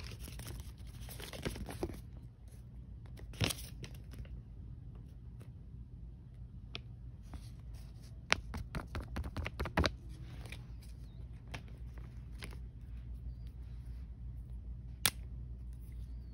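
Close-up handling of a paper checklist card and packaging: rustling and crinkling with scattered light taps and a few sharp clicks, the sharpest one near the end.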